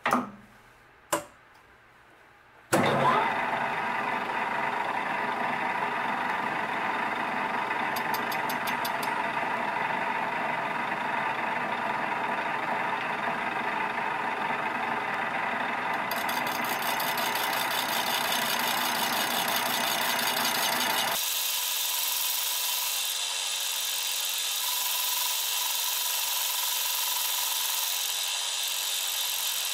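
Wasino LRS-55A lathe: two clicks, then about three seconds in the machine starts up and runs steadily as a carbide-tipped saw blade cuts into a metal bar. About two-thirds of the way through, the sound turns abruptly higher and thinner as the footage speeds up fourfold.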